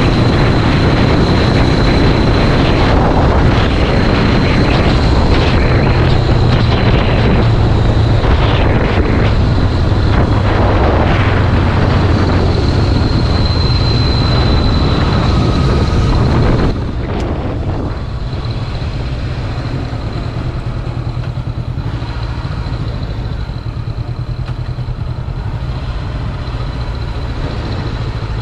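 Honda CBR500R parallel-twin engine running while riding, under heavy wind noise buffeting the microphone. About two-thirds of the way through, the wind noise and overall loudness drop abruptly, leaving the engine hum more exposed.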